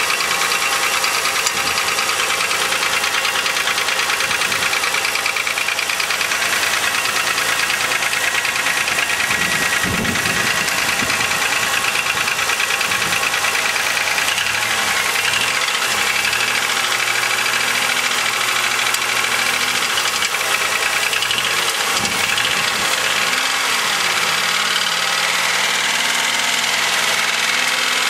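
2000 Chevrolet Malibu's 3.1-litre (3100) V6 running with a steady, rapid knocking clatter, which the owner takes for piston slap.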